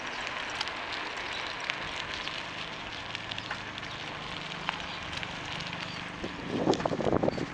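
Steady wind and rolling road noise on the camera of a moving bicycle, with small clicks and rattles and a faint low hum in the middle. Near the end, louder gusts of wind buffet the microphone.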